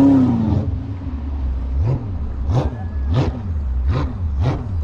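Jet boat's junkyard 5.3 LS V8 running with a low rumble, a brief rev rising and falling at the start. From about two seconds in, short slaps repeat roughly every 0.6 s, which fit the hull hitting small waves. The engine is running on oversized injectors with poor fueling.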